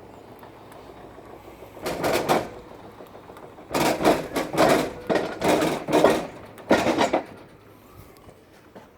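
Clattering and scraping from a washing machine strapped to a sack barrow being moved on a van's tail lift. There is one burst about two seconds in, then a quick run of several louder ones from about four to seven seconds.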